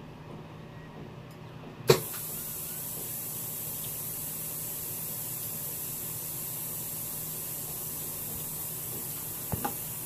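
A sharp click about two seconds in, then a steady hiss of blowing air: a hot air rework gun running, heating the underfill glue around an IC on an iPhone logic board.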